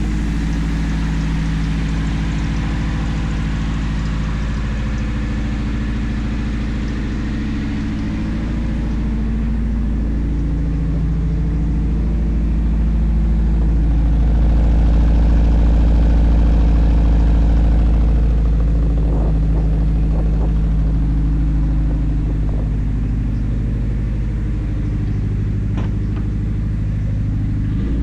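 Car engine running steadily for the whole stretch, its pitch drifting slowly up and down and swelling a little louder about halfway through.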